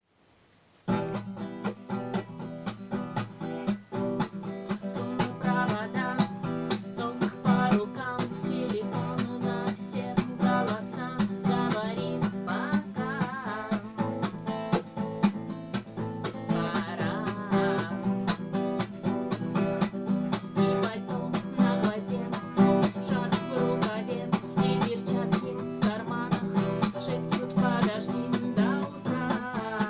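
Instrumental music with plucked and strummed guitar, a lively galop with a quick, steady beat, starting about a second in.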